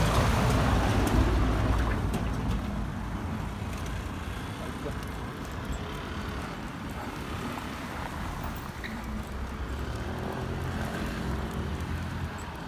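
A car passing close by on the street, its rumble fading over the first couple of seconds, then a steady low hum of street traffic.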